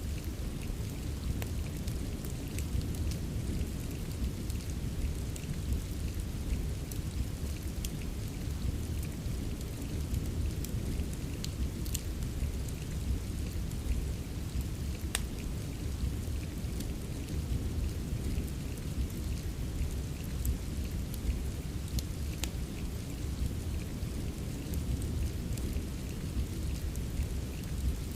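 Steady rain mixed with a fireplace, a continuous even hiss over a low rumble, with scattered sharp crackles throughout.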